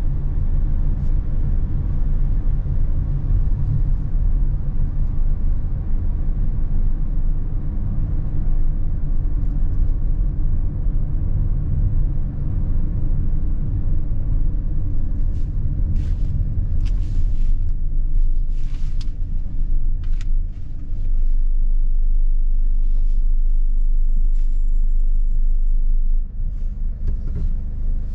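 Mercedes-Benz Sprinter van's engine and tyre rumble heard from inside the cabin while driving in city traffic, slowing behind cars at a traffic light near the end. A scattering of short sharp clicks comes over the rumble about halfway through.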